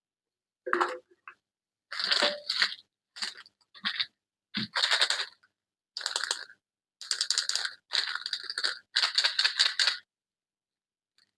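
Packaging being crinkled and torn open by hand in a run of short crackling bursts, with dead silence between them, ending about ten seconds in.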